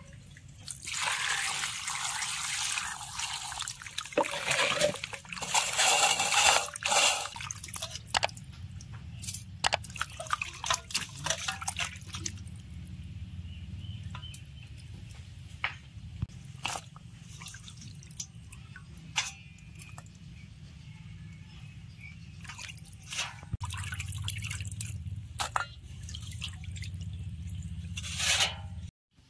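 Raw chicken pieces being washed by hand in a stainless steel bowl of water: water sloshing and splashing, with two longer rushes of water in the first seven seconds and scattered drips and small splashes after.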